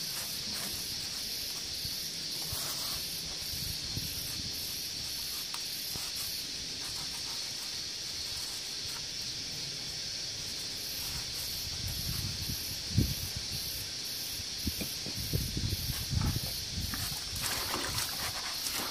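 Steady high-pitched hiss with a faint regular pulse, and a few knocks and bumps over the last several seconds as a plastic bucket is handled.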